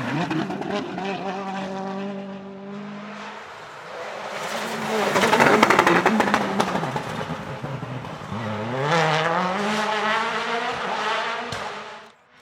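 Rally car engine running hard at high revs as the car goes by at speed; near the middle it swells loudest, then the engine note drops and climbs again as the car accelerates. The sound cuts off suddenly near the end.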